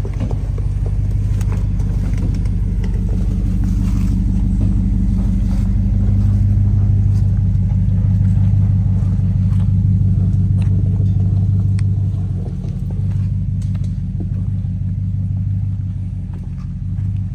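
Off-road 4x4's engine running steadily at low revs while the vehicle crawls through a trail obstacle, building up in the middle and easing off near the end, with a few light clicks and knocks.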